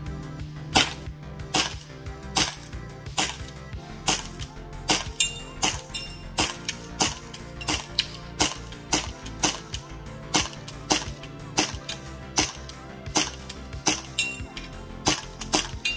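Action Army AAP-01 gas blowback airsoft pistol firing in semi-auto: a long string of sharp shots at about two a second, some two dozen in all, with background music underneath.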